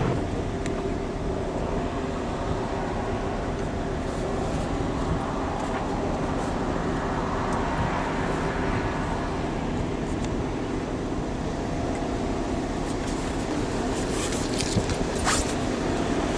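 Steady road traffic noise, with a vehicle swelling past about halfway through. A few sharp clicks near the end.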